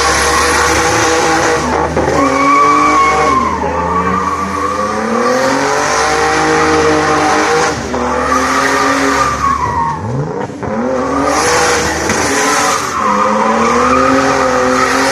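Turbocharged BMW E30's engine revving up and falling back again and again as the car spins donuts, with the tyres squealing. The engine note climbs and drops about half a dozen times, with short dips in revs around the middle.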